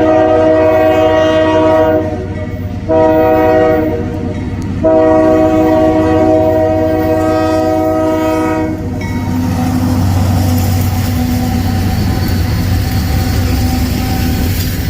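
Freight diesel locomotive's air horn blowing: the end of a long blast, then a short one about three seconds in and a long one ending around nine seconds, the close of the long-long-short-long grade-crossing signal. After that the engine's low rumble and the wheels clacking over the rails as the train passes.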